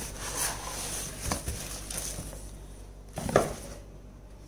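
Cardboard rubbing and scraping as a boxed product is slid out of a shipping carton, with a couple of light knocks and one louder thump about three seconds in.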